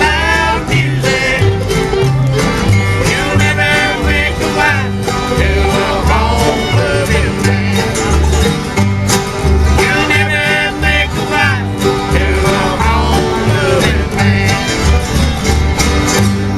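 Live bluegrass band playing an instrumental passage: banjo and guitar picking over a steady bass line that alternates between two notes.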